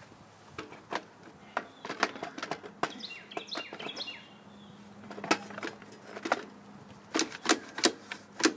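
Plastic recoil starter housing being handled and seated onto a Briggs & Stratton 140cc mower engine, with irregular clicks and knocks of plastic against metal. Near the end come a quicker run of louder clicks as the housing bolts are fastened with a socket wrench.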